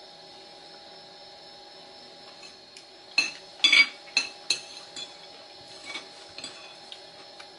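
Metal spoon and fork clinking against a bowl as food is scooped up. After about three seconds of quiet, a run of sharp clinks follows, the loudest about three to four seconds in.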